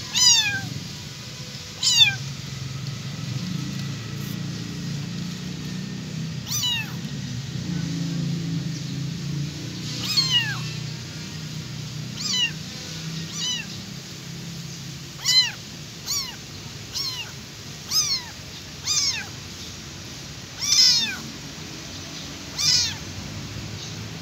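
Young abandoned kitten crying loudly: a string of about a dozen short, high meows that each fall in pitch, coming one to a few seconds apart.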